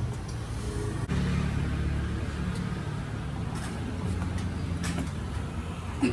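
Low, steady rumble of road traffic that grows louder about a second in, with a few faint clicks and a short squeak near the end.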